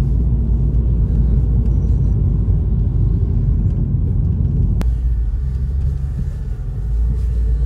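Steady low rumble of a car's engine and road noise heard inside the cabin while driving, with a single sharp click about five seconds in.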